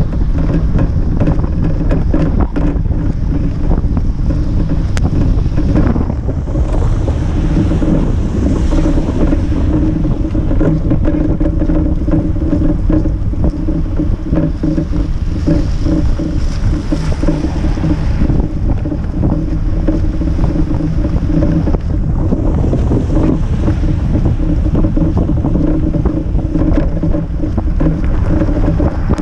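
Steady wind buffeting the microphone of a GoPro mounted on a moving cargo bike, mixed with the rumble of the bike's tyres on a wet, slushy road.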